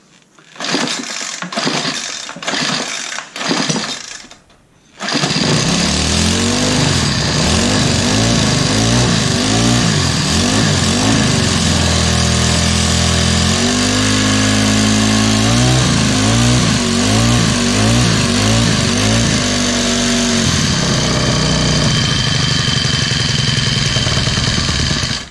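Troy-Bilt four-stroke string trimmer engine pulled over four or five times, then catching about five seconds in and running, its speed swelling up and down in quick surges before settling lower near the end. It starts and runs after its intake valve clearance has been reset.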